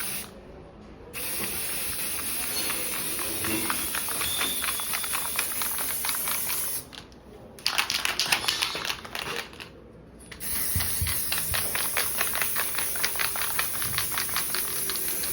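Metal file rasping across freshly cut steel unistrut ends, to deburr them, in three stretches of rapid scraping strokes with short breaks between.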